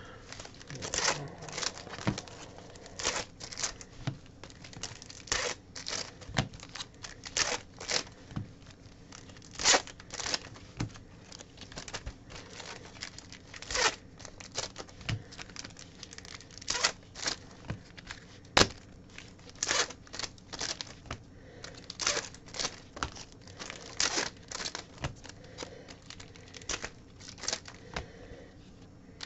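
Foil trading-card packs being ripped open and their wrappers crinkled: a long run of short, sharp rips and rustles, about one or two a second.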